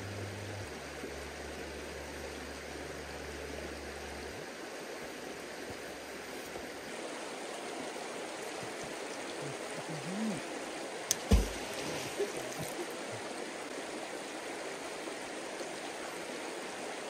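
River water running over a rocky bed in a steady rush, with one sharp knock a little past halfway and a few fainter knocks around it.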